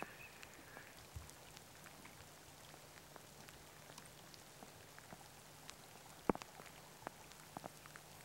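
Light rain pattering: many scattered raindrop ticks over a faint steady hiss, with one louder tick about six seconds in.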